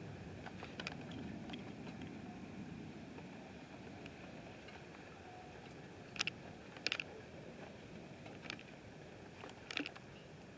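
Distant thunder rumbling low and fading away over the first few seconds, leaving a faint steady high hum in the night air. A few sharp clicks come in pairs about six and seven seconds in and again near the end.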